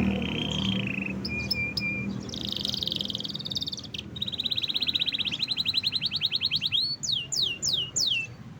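Domestic canary singing a varied song: short trills and clipped notes, then a long fast rolling trill a few seconds in, ending in a run of quick falling whistles.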